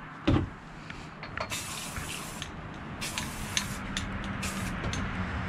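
Aerosol spray-paint can spraying a white base coat onto a bone skull in several short hissing bursts, the longest about a second. A low thump comes near the start.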